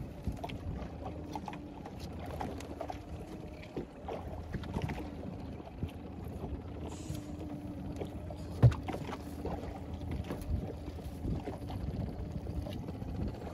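Small boat rocking at sea, with water lapping on the hull and scattered knocks of handling aboard. One loud thump comes a little past halfway.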